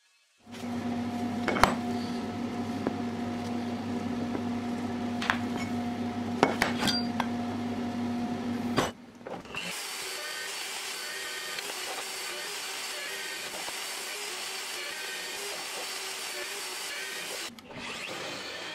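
A metal-cutting chop saw runs and cuts through a steel plate: a steady motor tone with sharp clicks now and then. About nine seconds in it stops abruptly and a Bosch bench drill press drills into the steel plate, a steady whir with a hiss, dipping briefly near the end.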